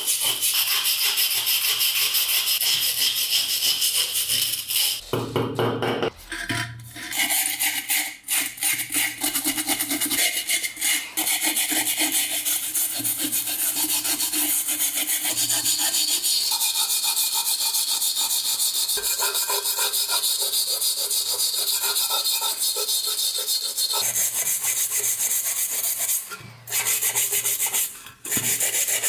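A stiff hand brush scrubbing rust off the metal parts of an antique oil lamp in rapid back-and-forth strokes, a continuous dry scratching, with brief pauses near the end.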